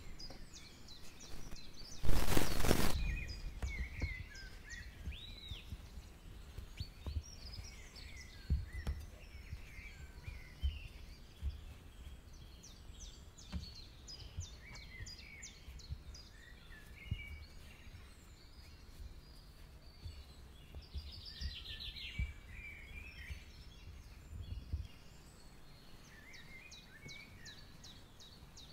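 Small birds chirping and singing in the background, with scattered soft knocks and bumps from handling fish pieces and bowls on a wooden table. A loud rush of noise lasting about a second comes about two seconds in.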